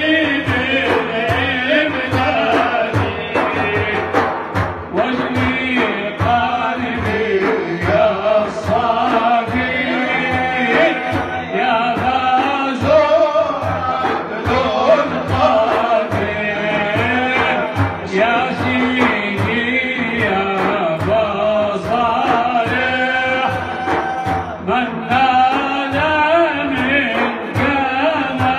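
An elderly man singing a Turkish Sufi ilahi (devotional hymn) in a wavering, melismatic line, accompanied by a large frame drum (daf) beating a steady rhythm.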